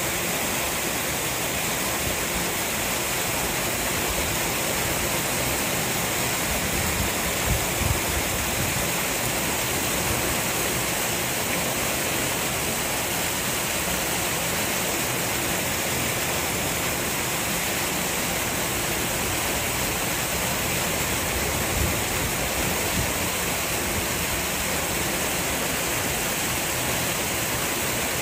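Steady rush of water pouring and churning into a polar bear's pool, with a few brief low thumps.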